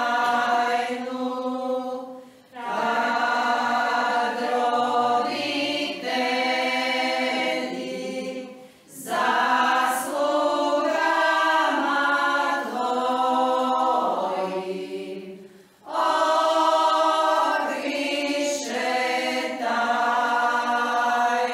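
Women's folk choir singing a traditional church folk hymn a cappella, in long phrases broken by brief breathing pauses three times.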